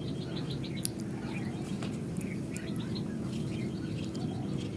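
Small birds chirping repeatedly in quick, short calls over a low, steady background hum.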